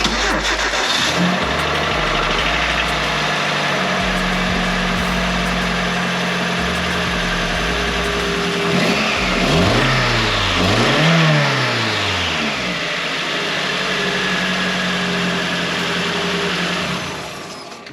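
Nissan KA24 2.4-litre four-cylinder engine running at idle after a new timing chain has been fitted, revved twice about nine to eleven seconds in, then settling back to idle. The owner judges that it sounds decent, with the chain no longer slapping around inside.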